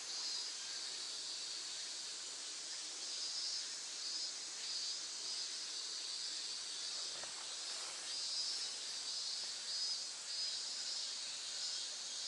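Cicadas droning in a steady, high-pitched chorus that swells and fades every second or so.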